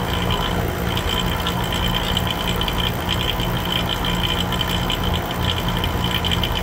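HVAC vacuum pump running steadily, a low motor hum with a fast, fine rattle on top, as it pulls a vacuum on the air-conditioning system's refrigerant lines after the nitrogen pressure test.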